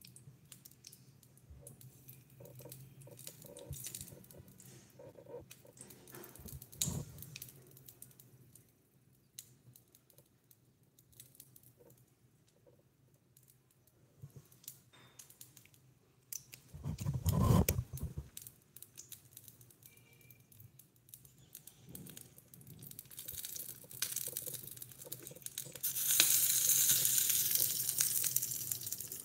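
Small clicks, taps and rustles of tiny dishes, a toothpick and soft miniature food being handled and plated. A louder dull thud comes about two-thirds through, and a stretch of hiss near the end.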